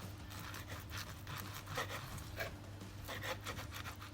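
Serrated steak knife sawing back and forth through a steak, a quick run of rasping strokes. A steady low hum underneath.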